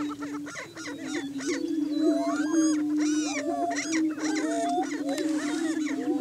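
Greater prairie chickens booming on a lek: a steady low booming from displaying males, with many short cackling and whooping calls rising and falling over it.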